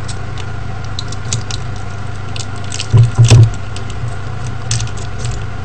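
Hands handling sticky tape and paper: light rustles and small clicks over a steady low electrical hum, with a louder knock about three seconds in.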